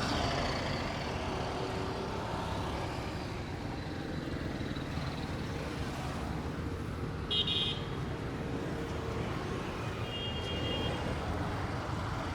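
Steady street traffic noise, with a short horn beep about seven seconds in and another, longer high beep around ten seconds in.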